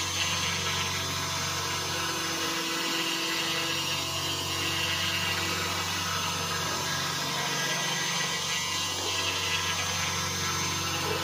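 5-axis CNC router running as its spindle carves a foam column: a steady machine hum with a thin high whine over it.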